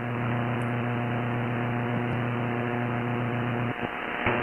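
Shortwave AM receiver audio from an SDRplay RSPdx software-defined radio: steady static hiss with a strong hum, cut off above about 3 kHz. Near the end it drops out briefly twice, with a click, as the receiver is retuned to 10 MHz, where the time station WWV is only weakly heard.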